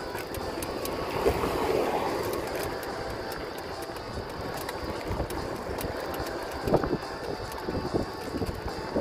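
Riding a bicycle: steady rolling and wind noise with light, irregular clicking, and a sharper knock about two-thirds of the way through.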